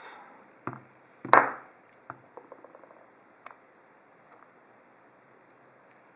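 Small metal clicks and taps from handling a disassembled padlock's pins with tools: a single click, then a sharp knock about a second and a half in, a quick patter of light ticks just after two seconds, and a few scattered faint clicks.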